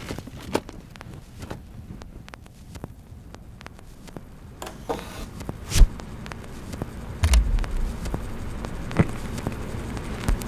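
Vinyl records being handled: sleeves shuffled through a plastic crate and a record lifted out and laid on a Numark portable turntable, with scattered clicks and crackle throughout. Two dull thumps come a little past the middle, after which a steady low rumble holds.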